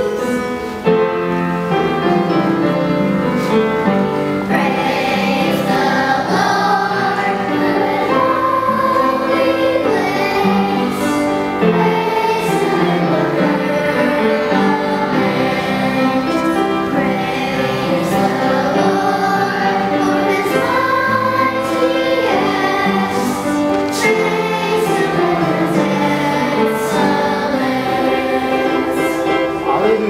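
Children's choir singing a song, with many young voices on sustained sung notes throughout.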